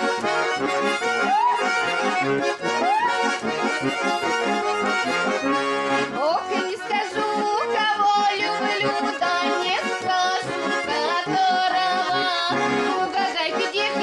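A garmon and a bayan playing a lively Russian folk dance tune together, with a woman singing over them.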